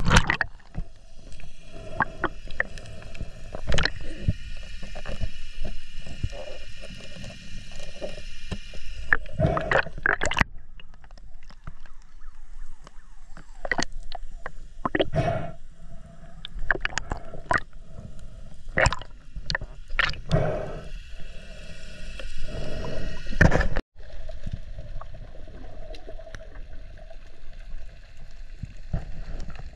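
Underwater sound through an action camera's housing: muffled water movement with a steady low rumble, broken by many sharp knocks and clicks as a diver handles speared fish on a stringer. The sound cuts out for an instant about six seconds before the end.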